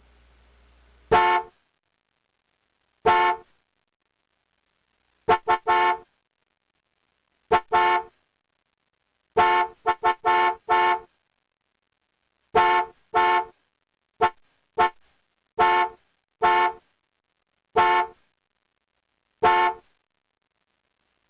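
Car horn sound effect: a series of short honks, some single and some in quick runs of two to four, with dead silence between them.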